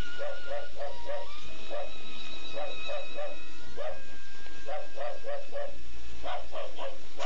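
Early sound-film soundtrack: sustained high music notes over runs of short repeated pulses, about three a second.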